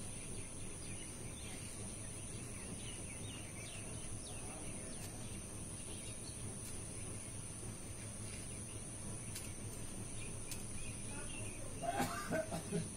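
Outdoor ambience: a steady background hiss with a steady high-pitched whine and faint bird chirps in the first few seconds. A person's voice breaks in briefly near the end.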